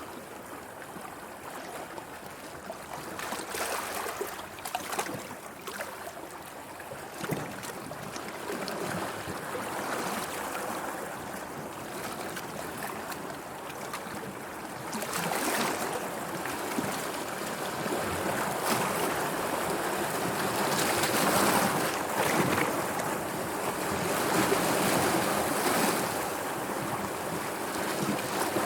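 Sea waves on the shore, a continuous rush of surf that swells and eases, with louder surges a few seconds in, about halfway through and again near the end.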